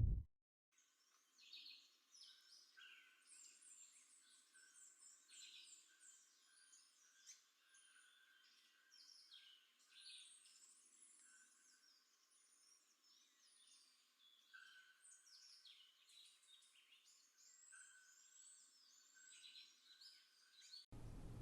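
Faint birdsong: many short chirps and whistles from several birds, overlapping, with a thin high whistle held now and then. Just before the end it gives way to a low steady noise.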